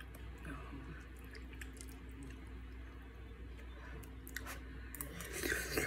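A person eating ramen from a pot: faint chewing and wet mouth sounds with light clicks of a metal spoon against the pot, growing louder near the end.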